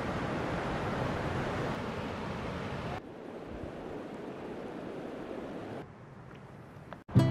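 Waterfall rushing, a dense, steady noise of falling water. About three seconds in it cuts to a softer rushing of water, and it drops again near the end.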